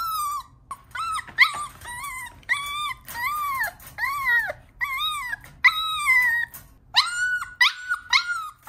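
Two-month-old F1 Mini Goldendoodle puppy crying in a rapid run of high-pitched whines, about two a second, each rising and falling in pitch. It is crying at being shut in its crate.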